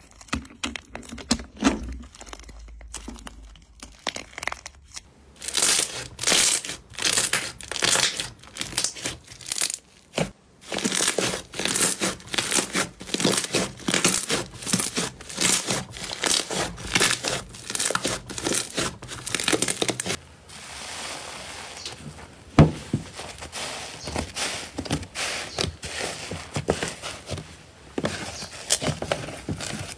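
Hands tearing, squeezing and pressing slime, giving dense crackling, crinkling and tearing sounds. About twenty seconds in the texture changes to a softer, hissier crackle as a different slime is worked.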